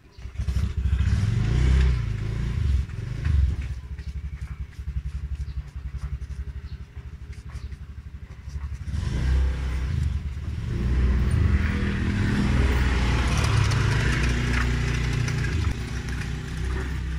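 A motor vehicle engine starts abruptly and runs close by with a fast, even firing beat; about nine seconds in it revs up and holds at a higher, louder level.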